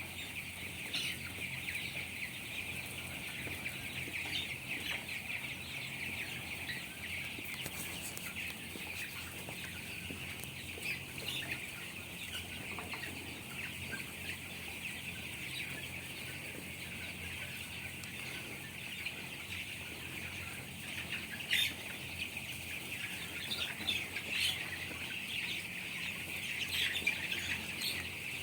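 A large flock of young chickens peeping and chirping all together in a dense, unbroken chatter, with a low steady hum underneath and a few sharper clicks later on.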